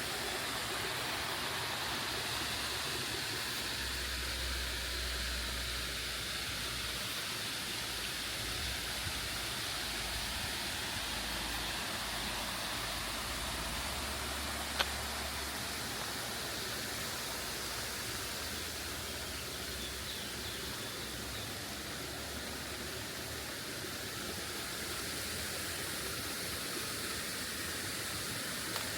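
Waterfall rushing, a steady hiss of falling water, with a single sharp click about halfway through.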